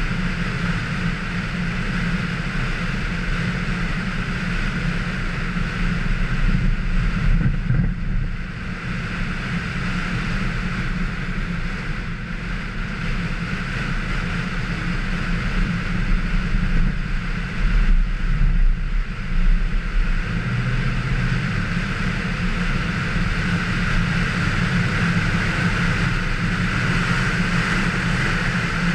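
A vehicle's engine running steadily as it drives at speed over a snow-covered track. It gets louder for a few seconds about six seconds in, and again for several seconds in the middle.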